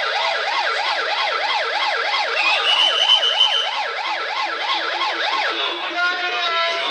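Police car siren on its fast yelp setting, sweeping up and down about four times a second without a break. A steady high tone rides over it for about a second, and a short held tone sounds near the end.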